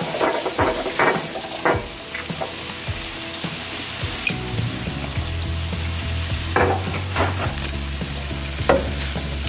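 Shrimp and vegetables sizzling in a nonstick skillet in soy sauce and sriracha, with a spatula stirring and scraping the pan in short strokes through the first two seconds and a few more times near the end.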